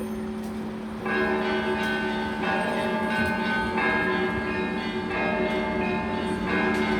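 Russian church bells ringing: a deep bell's tone hums on underneath while a group of smaller bells is struck together about every second and a half, starting about a second in.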